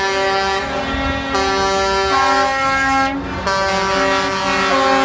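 Air horns of cement mixer trucks blowing long, overlapping blasts at several pitches, with a short break about three seconds in.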